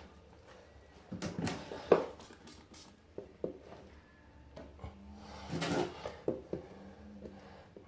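Irregular knocks, clicks and short scraping or rubbing sounds of tools and parts being handled, with a louder cluster about a second in and another around the middle.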